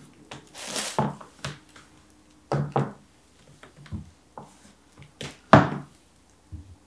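Scattered knocks, taps and rustling as shoes are taken off and put on, with the loudest knock about five and a half seconds in.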